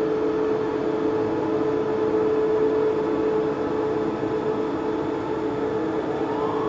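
Soma Labs Lyra-8 analog drone synthesizer playing a sustained, noisy drone of steady low-mid tones over a hiss. Near the end a higher tone glides upward.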